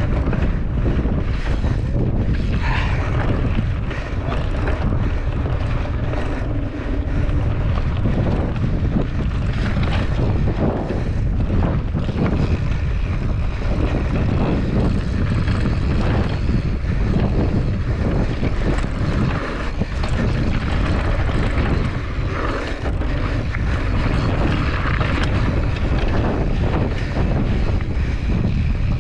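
Mountain bike rolling fast down a dirt singletrack: wind buffets the action camera's microphone in a steady low rumble, with tyres crunching over loose dirt and stones and frequent small rattles and knocks from the bike.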